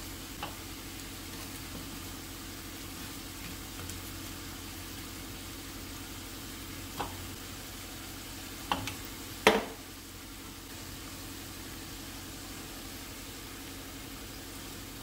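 Potato sticks deep-frying in hot oil in a skillet: a steady sizzle. A few light knocks and one louder clack just past halfway come from pieces of fried fish being laid on a clay platter.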